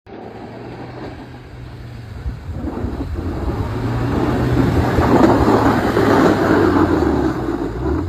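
Pickup truck with a front-mounted snowplow blade pushing snow: its engine runs with a steady low hum under the rushing scrape of snow against the blade, growing louder as the truck comes close and loudest about five to seven seconds in.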